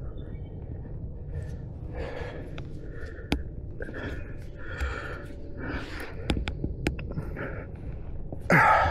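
A person breathing hard in short, repeated gasps, with a few sharp clicks in between. Near the end comes a brief loud sweep that falls in pitch.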